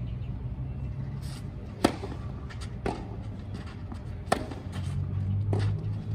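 Tennis ball struck by racquets during a rally on a clay court. A sharp serve hit close by about two seconds in, then returns roughly every second and a half, the near player's shots louder and the opponent's softer. A low steady hum runs underneath.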